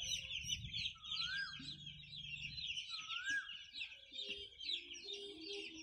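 Hundreds of day-old broiler chicks peeping all at once, a dense, unbroken chorus of high-pitched chirps.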